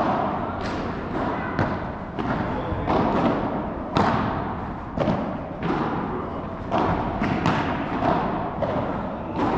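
Padel balls knocking off rackets and bouncing on the court, sharp hits coming one or two a second with a hollow echo from a large indoor hall.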